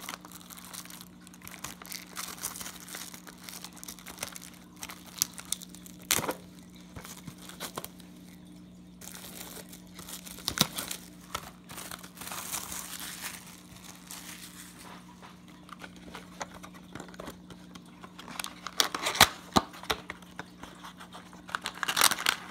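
Crinkling and tearing of packaging as a box of trading card packs is unwrapped and the packs are handled, in irregular crackly bursts with sharp snaps, busiest near the end.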